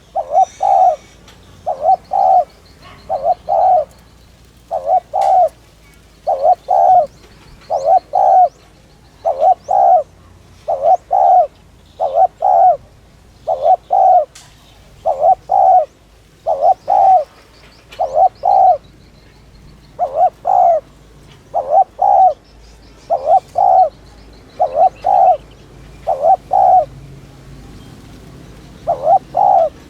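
Spotted dove cooing in the rapid 'thúc' style: short double coos repeated about every one and a half seconds, with a pause of about two seconds near the end. Faint chirps of small birds sound behind.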